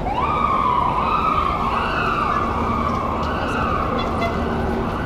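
Police car siren starting up with a quick rise in pitch, then wailing in slow rises and falls, over crowd and street noise.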